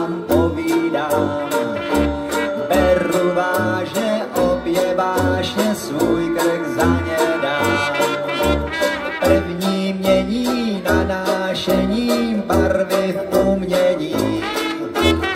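Live band of trumpet, banjo, tuba and washboard playing an instrumental passage. Tuba bass notes fall on the beat under steady washboard clicks, with strummed banjo and a trumpet line on top.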